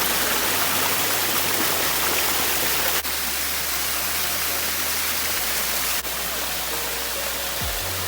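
Waterfall: a steady, loud rush of falling water, broken by two abrupt cuts about three seconds apart.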